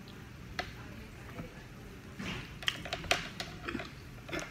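A person chewing a mouthful of French toast close to the microphone, with scattered wet clicks and smacks from the mouth, most of them bunched in the second half.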